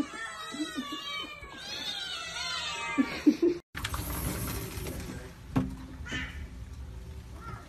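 Several kittens mewing at once, high thin calls overlapping one another. A little past halfway they cut off abruptly and a low, steady rumbling background follows, with a single sharp knock.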